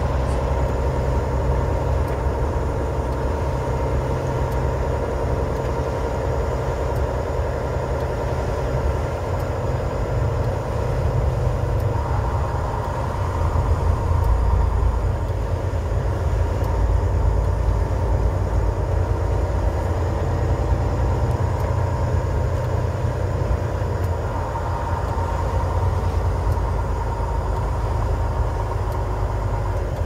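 Steady low drone of a tractor-trailer's engine and tyres on a snowy highway, heard inside the cab, swelling slightly midway as another truck comes alongside.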